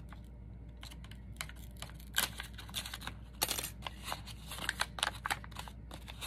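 Paper being handled and crinkled by hand: a quick run of short crackles and clicks, busiest in the middle seconds, over a faint steady low hum.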